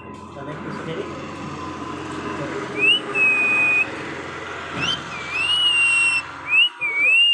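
Pet parrot whistling: a short rising whistle into a held note about three seconds in, a longer rising whistle held steady about five seconds in, then a wavy up-and-down whistle near the end, over steady room noise.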